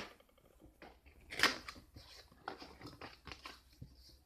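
Cardboard box with a clear plastic case being handled: faint scrapes and rustles of packaging, the strongest about a second and a half in.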